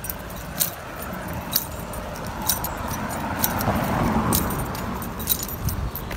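Footsteps on paved ground, about one step a second, each a sharp click, over a steady rushing noise that swells in the middle.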